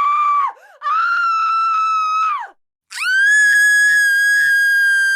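A person screaming hysterically in fear. One scream breaks off about half a second in. After a quick gasp, a second scream lasts about a second and a half and drops in pitch at its end. After a short pause, a longer, higher, steady scream starts about three seconds in.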